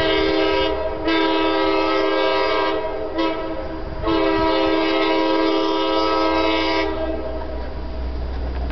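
Diesel locomotive horn of an Alco S-1 sounding four blasts, long, long, short, long: the standard warning signal of an approaching train. A low rumble rises near the end.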